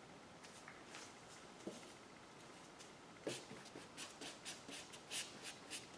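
Paintbrush stroking and dabbing oil paint onto a stretched canvas: faint scratchy strokes, with a quick run of them from about three seconds in, roughly four a second.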